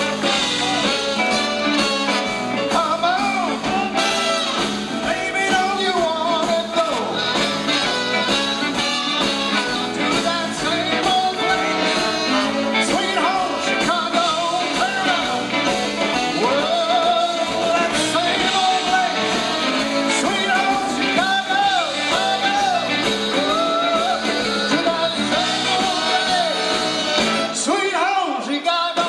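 Live blues band playing: electric guitars and drums, with a lead line that bends up and down in pitch over the band.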